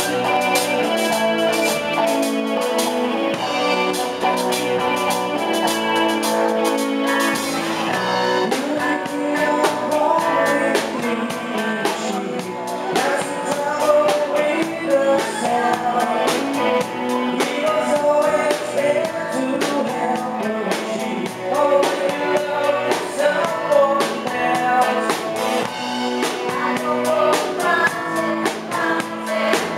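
Live band playing a song, a woman singing lead into a handheld microphone over guitar and drum kit. The drumming gets busier about eight seconds in.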